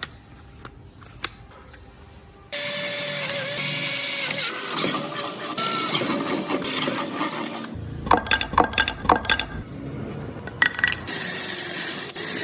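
Workshop tool sounds in short cuts: a few light clicks, then about five seconds of a power tool running loudly, a quick run of taps and knocks, and a loud hiss near the end.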